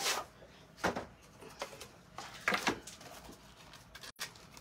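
Wooden box frame being handled and set down on a craft mat, with a plastic stencil laid inside it: a few light knocks and rustles, near the start, about a second in and around two and a half seconds.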